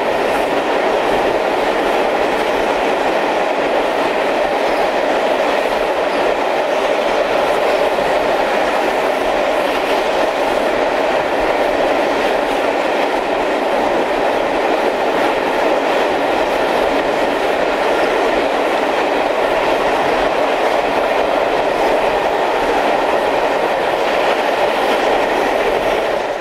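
Steady running noise of a steam-hauled passenger train at speed, heard from an open coach window: an even rush of wheels on rail and passing air.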